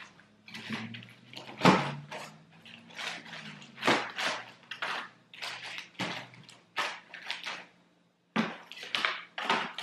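Plates, pans and utensils clattering as they are packed into a plastic storage bin: irregular knocks and rattles, the loudest about two and four seconds in.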